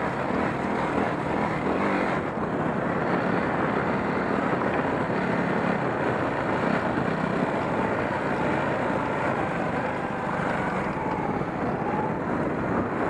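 Yamaha WR250R's 250 cc single-cylinder four-stroke engine running steadily as the dirt bike rides along a muddy, snowy track.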